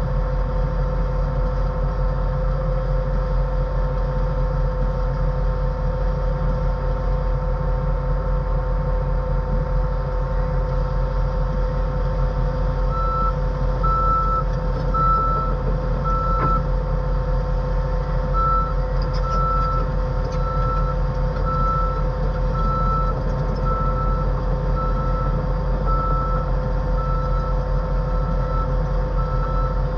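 Heavy earthmoving machine's diesel engine running steadily under load, heard from inside the cab. About halfway through, a backup alarm starts beeping about once a second, with a short break, and keeps on to the end.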